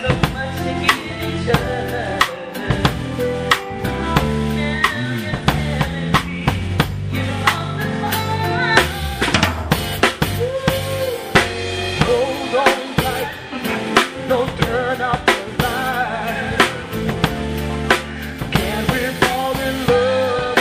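Band music with a drum kit keeping a steady beat of kick drum, snare and rimshots under a bass line, and a voice singing over it.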